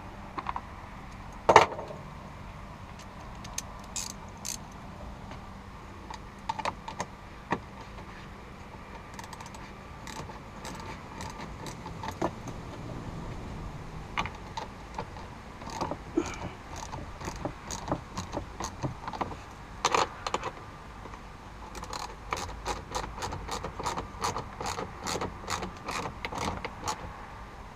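Scattered metallic clicks and taps of a hand tool setting small screws into the plastic housing of a blend door actuator, turning into quick, steady clicking for the last several seconds.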